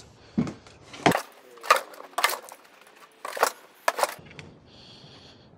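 A shovel scraping and turning damp shredded-cardboard worm bedding in a garden cart, the blade catching on the cart's floor: about half a dozen separate short scrapes and scuffs, irregularly spaced.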